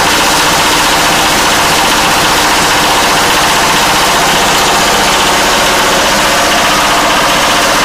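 8 hp single-cylinder stationary diesel engine running steadily, with a fast, even chugging, driving a plastic grinding machine. The sound is loud and holds level throughout.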